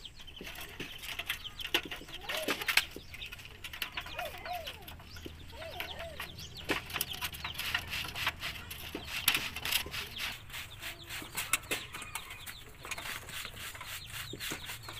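Rusty galvanized iron sheet clicking and rattling as wire ties are twisted through its punched holes. Chickens cluck a few times in the first half.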